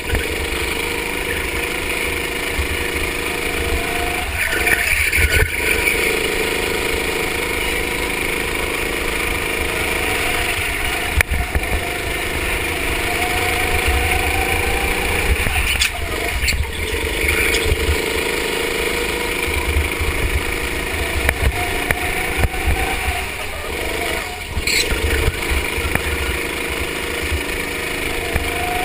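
Go-kart engine recorded onboard, running hard through a lap. Its pitch climbs steadily along the straights and drops sharply three times as the kart slows for corners, then builds again.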